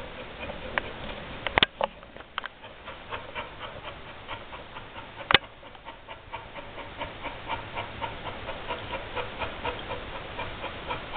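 Golden retriever panting fast and evenly, about three to four breaths a second: the heavy panting of a bitch in labour contractions. A sharp click sounds about a second and a half in, and a louder one about five seconds in.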